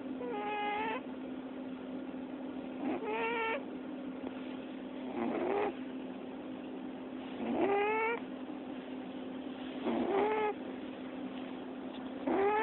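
Domestic cat squeak-snoring in its sleep: a short squeaky call that rises in pitch comes with each breath, six times, about every two and a half seconds.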